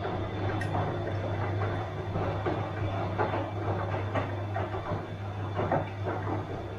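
Bosch washing machine running: a steady low hum with irregular swishing and soft knocks from the turning drum.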